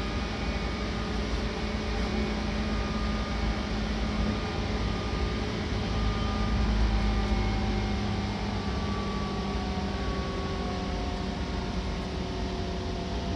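Seibu Red Arrow limited express train running, heard from inside the passenger car: a steady low rumble of wheels and track with faint whining tones from the drive that drift slightly in pitch.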